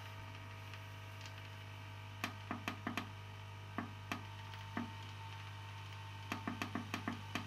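Aoyue INT852A+ hot air rework station running with a steady low hum while desoldering a chip. Sharp small clicks and taps start about two seconds in and come in a quick cluster near the end.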